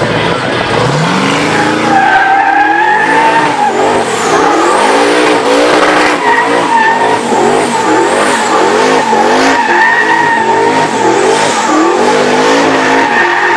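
Twin-turbo LS V8 in an Oldsmobile 442 revving up about a second in, then held high with the revs rising and falling about twice a second as it spins donuts. The rear tyres squeal steadily throughout.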